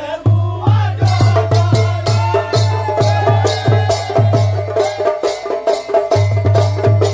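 Chholiya dance band playing: deep drum beats about twice a second with cymbal clashes, under a wind instrument holding long notes. The drum beats drop out for about a second near the end, then come back.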